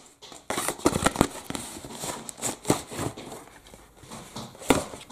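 Cardboard shipping box being handled and pulled open by hand: irregular knocks, scrapes and rustles of cardboard, with a few sharper knocks about a second in and near the end.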